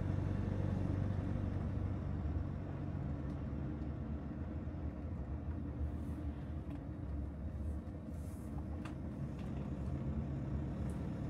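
Steady low engine and road noise inside a moving car's cabin, with a few faint clicks in the second half.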